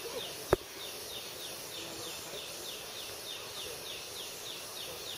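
Forest ambience: a high, falling chirp repeating steadily about three times a second, with one sharp knock about half a second in.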